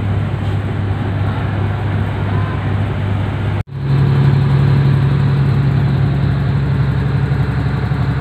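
Steady low drone of a diesel railcar's engine and running gear, heard inside the passenger car. The sound breaks off abruptly about three and a half seconds in and resumes as a slightly louder, higher-pitched hum.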